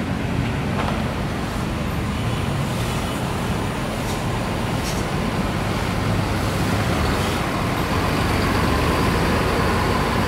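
Diesel engine of a large intercity coach running steadily as the bus pulls out and drives slowly past.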